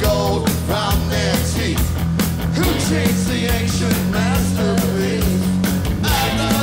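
Hard rock band playing live: a man singing into the microphone over electric guitars, bass guitar and drums.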